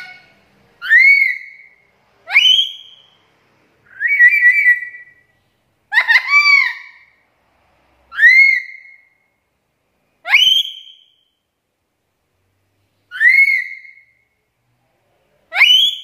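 Black-capped lory (Lorius lory) giving loud whistled calls, about eight of them one to three seconds apart with silence between. Each is a quick upward-sweeping whistle that arches over and drops away, with one flatter call and one doubled call about midway.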